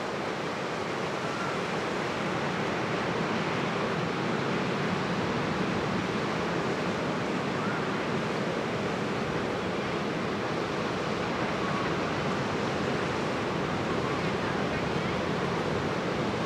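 Ocean surf breaking and washing up a pebbly beach: a steady rush of waves.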